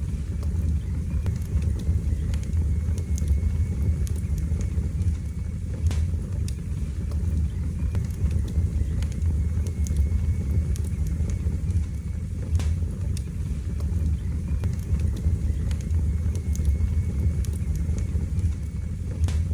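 Wood fire burning in a fireplace: a steady low rumble of the flames with a sharp crackle or pop every few seconds.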